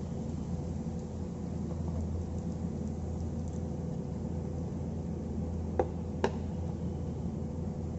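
Two sharp taps about half a second apart, near the end, over a steady low hum; the taps sound like a kitchen utensil knocking on cookware.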